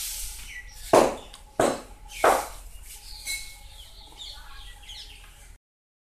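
Hands rubbing foam shampoo into a Lhasa Apso's long coat: three or four short swishing rubs in the first two and a half seconds, followed by quieter rubbing, with the sound dropping out briefly near the end.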